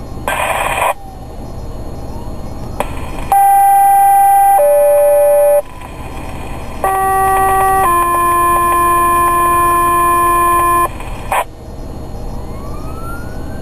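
Fire-dispatch two-tone paging tones over a radio: a first pair stepping from a higher steady tone down to a lower one, then a second pair with a one-second tone followed by a longer three-second tone. A short noisy burst comes at the start, and a siren wails up and down near the end.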